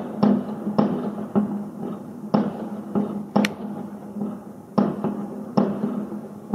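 Fireworks exploding: about eight sharp bangs at uneven intervals, over a steady low hum.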